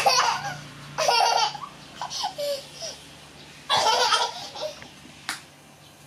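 A young child laughing in three loud bursts, at the start, about a second in and again about four seconds in.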